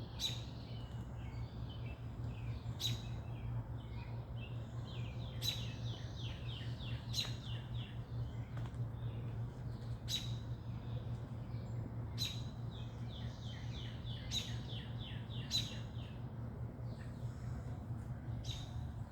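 Songbirds chirping: sharp high calls every second or two, with quick runs of short high notes between them. A steady low hum runs underneath.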